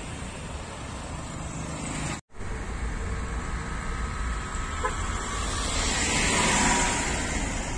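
Road traffic noise, with motorcycles passing. It breaks off for a moment about two seconds in, then the vehicle noise swells near the end.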